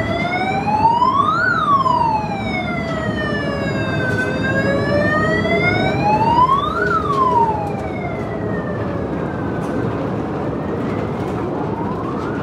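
A wailing siren whose pitch slowly rises and falls, peaking about every five and a half seconds, over a steady rushing noise.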